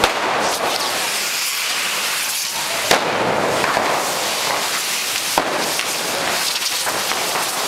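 Hand-held 'coets borratxos' (drunken rockets) hissing and whooshing without a break as they spray sparks, with two sharp bangs, about three seconds in and again about five and a half seconds in.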